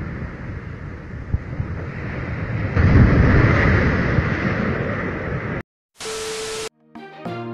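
Wind buffeting the microphone, then about three seconds in a sudden heavy low rumble as a tall concrete tower crashes to the ground, fading over the next few seconds. Near the end a short burst of TV-static hiss, then music begins.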